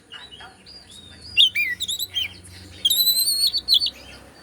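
Oriental magpie-robin (kacer) singing: a string of sharp whistled notes, several gliding quickly downward, with a longer held whistle about three seconds in.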